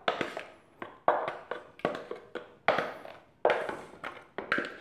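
Spatula scraping and knocking against a clear plastic food-processor bowl, scooping thick, creamy frozen banana-coconut ice cream out into a plastic container: a series of short scrapes and taps, about two or three a second.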